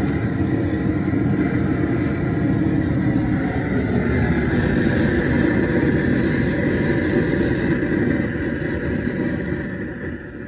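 Propane burner under a crawfish boil pot, its flame burning with a steady rushing sound that fades out near the end as the gas is shut off.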